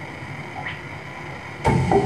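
Live electronic noise music: a steady low drone with level held tones, then, about a second and a half in, a sudden loud hit with ringing tones after it.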